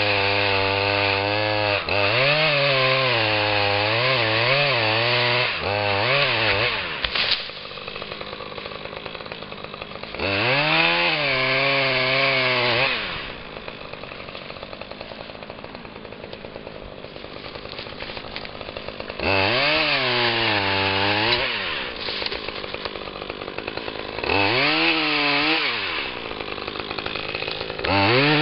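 Husqvarna 535 FBx backpack chainsaw's 35cc two-stroke engine, revved to full throttle again and again, each time for two to four seconds, as it saws through small beech stems. It drops back to a lower idle between cuts.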